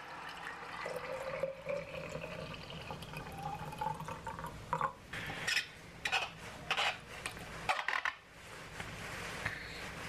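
Hot water poured from a kettle into a stainless steel tumbler, the pitch of the filling rising as the tumbler fills, for about five seconds. Then about six sharp metallic clicks and clatters as the tumbler's lid is handled and put on.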